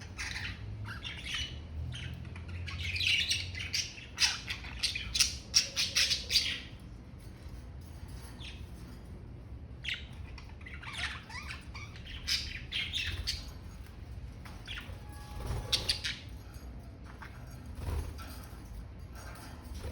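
Budgerigars chattering: a rapid run of short chirps, squawks and warbles, busiest and loudest a few seconds in, then coming again in bursts.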